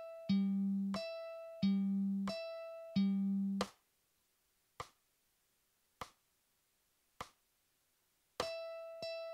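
Mandolin picking slow single notes, alternating the low open G string and the high open E string, each note ringing and dying away. The notes stop partway through and three metronome clicks follow about a second apart. Near the end, repeated high open-E notes start up again at a slightly quicker pace.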